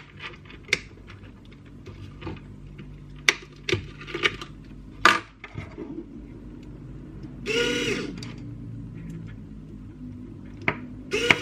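Small electric RC winch motor whirring in short runs: once for under a second about seven and a half seconds in, and again starting just before the end. Sharp clicks of wire connectors and parts being handled come first. The winch is driven by a cheap winch control module that the owner finds troublesome.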